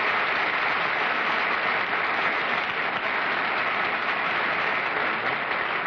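Studio audience applauding steadily, starting to die away near the end.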